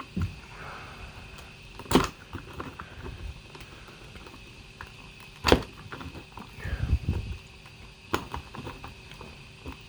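Hard printed plastic being worked with a hobby knife: sharp snaps and clicks, two loud ones about two and five and a half seconds in, then a run of knocks and small ticks, as fused hinges and support material are cut and broken free.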